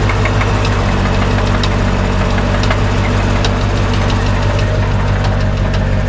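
C4 Corvette's V8 idling with a steady run of irregular sharp knocks from inside the engine, not from a pulley or other moving part outside it. The owner calls it knocking terribly, which a friend guesses may be a bad lifter or a blown motor.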